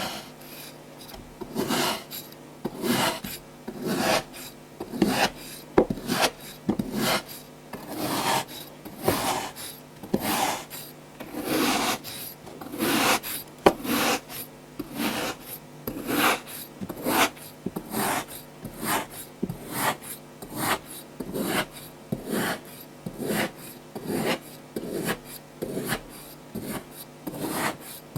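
Kinetic sand being worked in a long run of irregular strokes, roughly one or two a second, each a short rasping crunch.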